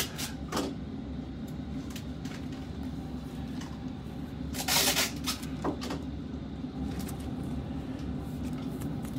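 Trading cards being handled: a brief rustle about halfway through and a few light clicks, over a steady low hum.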